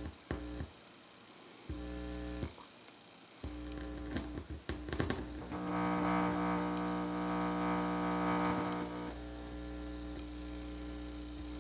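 Stereo speakers buzzing with 60 Hz mains hum, picked up through a loose 3.5 mm audio input plug. The buzz comes on briefly about two seconds in, then returns at about three and a half seconds and holds, loudest in the middle. A few sharp crackles mark the moments the plug makes and breaks contact.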